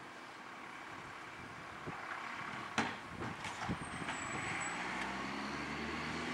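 Garbage compactor truck's diesel engine running as it approaches, growing louder over the last second or so, with a few sharp knocks near the middle.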